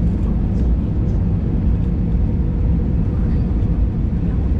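Steady low rumble of an airliner's engines and airflow, with a faint steady hum above it.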